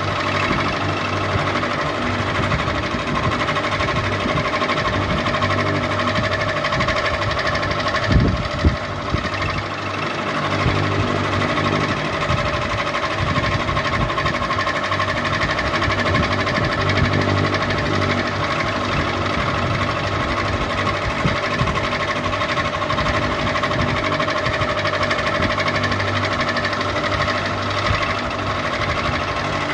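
Ceiling fan running steadily with a constant motor hum and whirr. A couple of short knocks come about eight seconds in.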